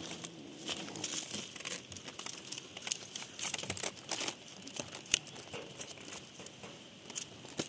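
Dry leaves and gravel crackling and rustling under a kitten's paws as it bats at and moves a fish on the ground: irregular small crackles, with one sharp click about five seconds in.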